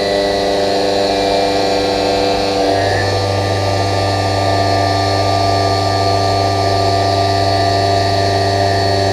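2 HP Tormach 1100MX CNC mill cutting steel: the spindle runs steadily while the cutter chews through the metal, with a steady hum and a set of steady tones over a hiss of cutting. About three seconds in the low hum changes as a different cut takes over.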